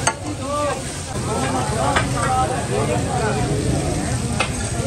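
Chicken pieces sizzling steadily in oil on a large flat iron tawa griddle, with three sharp knocks of cooking tools against the griddle.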